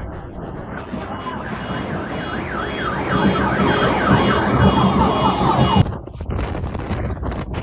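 Electronic alarm siren wailing in fast, repeated rising-and-falling sweeps over steady background noise, cutting off abruptly about six seconds in; gusty wind-like noise follows.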